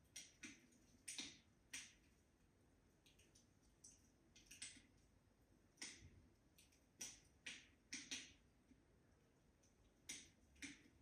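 Wood fire burning in a fireplace, crackling quietly with irregular sharp pops and snaps, a dozen or so spread unevenly.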